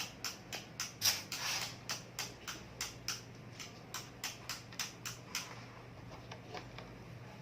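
Rapid, regular clicking, about three clicks a second, from a screwdriver working the screws of a MacBook Pro's case. The clicking stops about five and a half seconds in, leaving a few faint ticks over a low hum.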